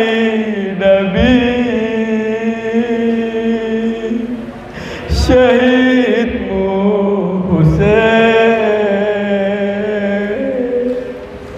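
A man's solo mourning chant sung into a handheld microphone, in long held, wavering melismatic phrases. It breaks for breath about five seconds in and again near the end.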